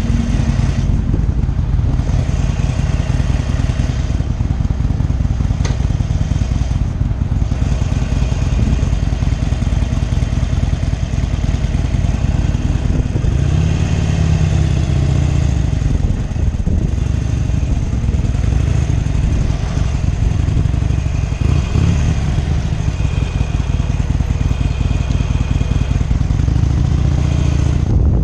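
Harley-Davidson Sportster 883 Iron's air-cooled V-twin running at highway speed, with wind rushing over the microphone. The engine note rises and falls once about halfway through.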